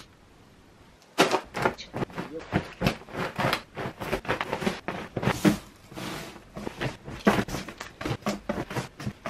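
Clothes being handled: fabric and padded jackets rustling and swishing as garments are tossed onto a pile and stuffed into a cardboard box. The rustles and soft thumps are irregular and start about a second in.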